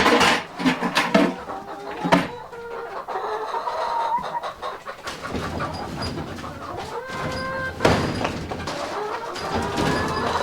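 Laying hens clucking, with a few sharp knocks at the start, about two seconds in and near eight seconds.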